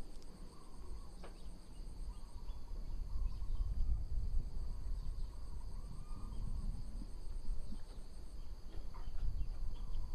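Steady high-pitched chorus of insects chirring, with a faster pulsing trill above it that stops near the end, over a low uneven rumble.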